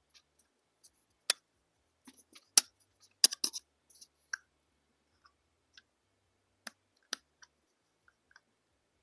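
Irregular sharp clicks and taps of an object being handled right at a small microphone: single loud taps about one and two and a half seconds in, a quick cluster of three soon after, and sparse fainter ticks later.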